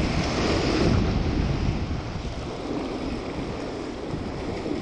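Wind on the microphone mixed with sea surf: a steady rushing noise, a little louder in the first second.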